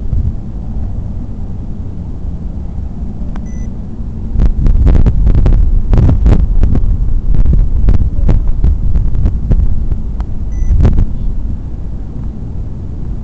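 Hurricane wind gusting hard against the microphone, a heavy low rumble with sharp crackles and rattles. The gusts strengthen about four seconds in and ease off near the end.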